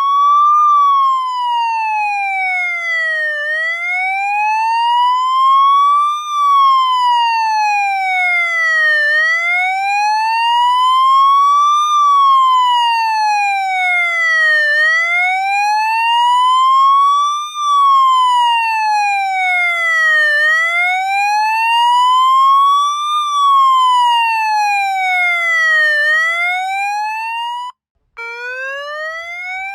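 Police siren in a slow wail, its pitch rising and falling smoothly about once every five to six seconds. It cuts out for a moment near the end and starts again from the low note, rising.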